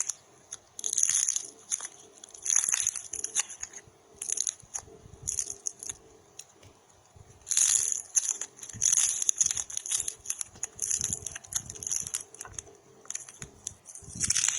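Popping clay being squeezed and pressed, giving bursts of dense crackling and popping with short pauses between squeezes.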